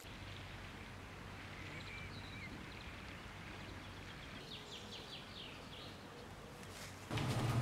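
Quiet outdoor ambience with faint birdsong: a few high chirps about two seconds in and a quick run of short notes around the middle. Near the end it cuts to a louder sound with a low hum, water being poured.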